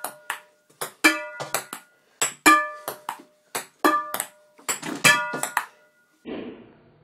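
Table-tennis rally played with a metal frying pan as the bat: quick clicks of the ball bouncing on the table and being hit, and each strike on the frying pan rings out with a bright metallic ping. The rally stops about six seconds in, followed by a short noisy burst.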